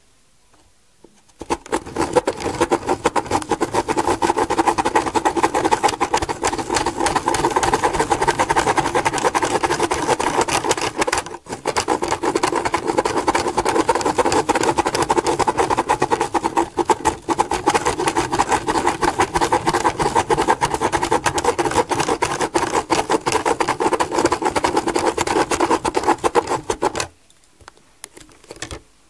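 Plastic Spirograph gear wheel driven around inside its toothed ring by a pen, the teeth clicking in a rapid, continuous rattle along with the pen running over the paper. It starts about a second and a half in, stops briefly near the middle and ends a couple of seconds before the close.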